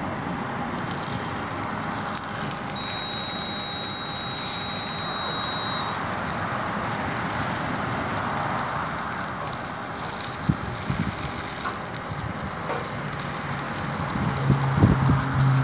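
Steady hiss and crackle of a downdraft biomass gasifier burner flame with an omelet sizzling in the skillet on it. Near the end a spatula knocks against the pan a few times.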